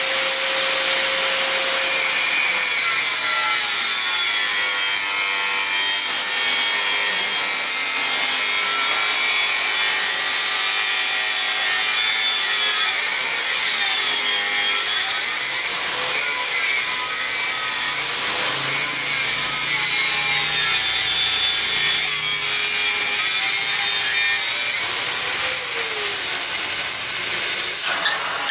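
LPG cutting torch hissing steadily as it cuts through iron pipe, with a faint whistle that wavers slowly in pitch.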